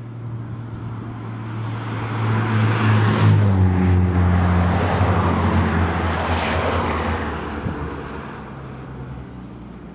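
Road vehicles passing close by, engine and tyre noise swelling and then fading. The engine note drops in pitch as one vehicle passes about three seconds in, and a second passes about six and a half seconds in.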